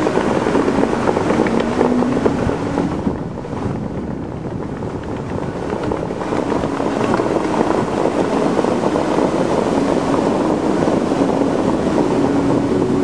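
Bellagio fountain jets spraying and the water crashing back onto the lake, a steady rushing that eases for a moment about three seconds in. Faint show music sits underneath.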